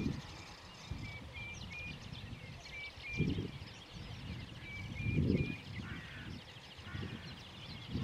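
Outdoor wetland ambience with small birds calling: short high notes repeated in twos and threes, and a fast high trill. Low rumbles come about three seconds in, about five seconds in, and again at the end.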